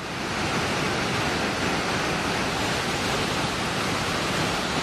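A steady, even rushing noise that swells up over the first half second and then holds level.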